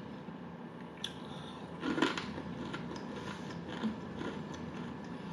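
A person biting into and chewing a crispy fried piece of food, with soft crunches, the clearest about two seconds in.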